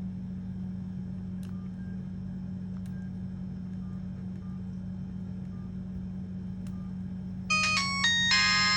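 Samsung SGH-T100 mobile phone ringtone starting near the end: a loud electronic melody with several notes sounding at once. Before it, a steady low hum with a few faint clicks and short soft beeps.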